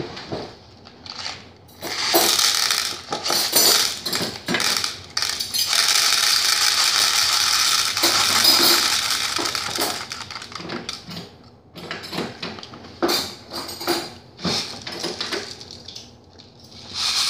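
Nerds candies pouring out of their small box into a plastic bowl: a dense rattling patter of tiny hard candies for several seconds, then shorter shakes and clicks near the end.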